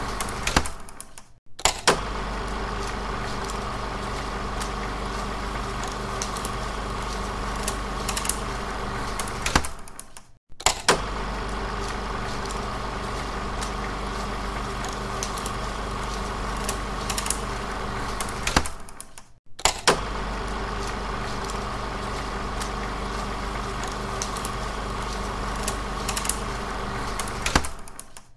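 16mm film projector running steadily with a low hum. The looped recording cuts out for a moment and restarts with a click about every nine seconds.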